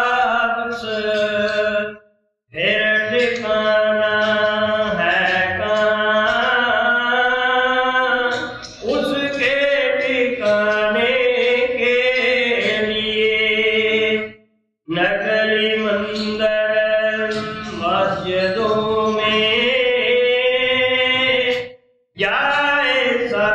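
A man's voice chanting a verse of a devotional hymn (bani) in long drawn-out melodic lines, with brief pauses for breath about two, fourteen and twenty-two seconds in.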